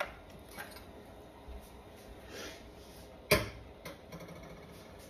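Kitchen handling noises as kosher salt is measured out of a cardboard salt box with a spoon: light clicks, a brief soft rustle about two and a half seconds in, then one sharp knock on the countertop a little over three seconds in, followed by a few small taps.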